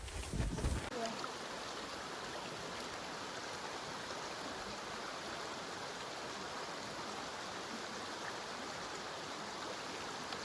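Wind buffeting the microphone for about the first second, then an abrupt switch to the steady rush of a stream running over rapids.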